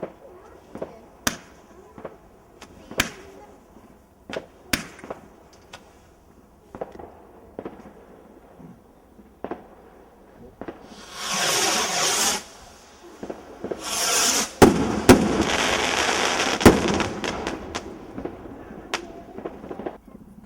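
Fireworks going off: sharp single cracks about every second and a half, then, about eleven seconds in, two loud hissing spells followed by several seconds of dense crackling with a few loud bangs that fades near the end.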